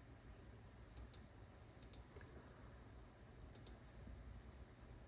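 Faint clicks of a computer pointer button in three quick pairs, about a second in, near two seconds and past three and a half seconds, over quiet room tone.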